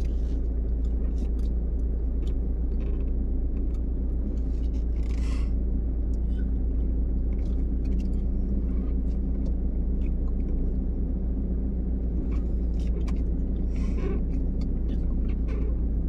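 Steady low rumble of a car's engine and tyres heard from inside the cabin while driving, with scattered light clicks and a brief hiss about five seconds in.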